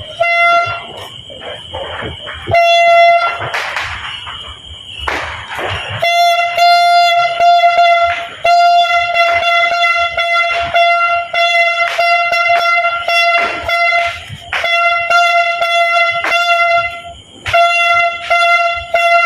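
A single-pitched horn blown in long, steady blasts with short breaks between them. Many short, sharp pops and cracks sound throughout.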